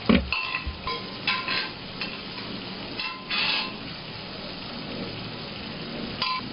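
A spoon knocking and scraping against metal cookware as boiled lotus root pieces are tipped into a pan of frying masala, over a steady low sizzle. The loudest is a thud right at the start, with a few shorter clinks and scrapes spread through the rest.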